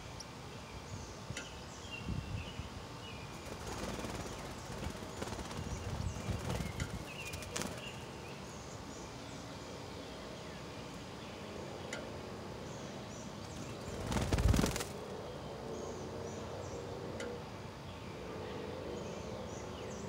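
Faint, scattered high chirps from northern cardinals at their nest, over rustling and a steady outdoor hiss. About fourteen seconds in comes one loud, sudden thump lasting under a second, like wings flapping close by.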